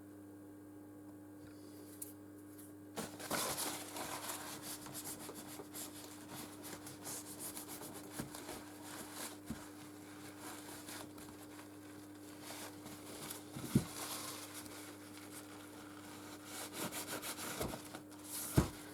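Hands pressing and rubbing a small lens cover into place on a phone's back, a run of scraping and light clicks with a couple of sharper taps, over a steady electrical hum.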